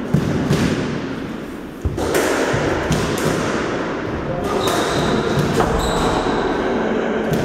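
Scattered thuds and knocks of a squash ball and footsteps, echoing around a squash court, with two long high squeaks in the last few seconds.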